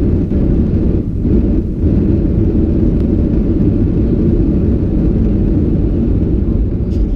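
Cabin noise of a Boeing 737-700 rolling out on the runway after landing: a steady, loud low rumble from its CFM56 jet engines and wheels on the pavement as the jet slows toward the turn-off.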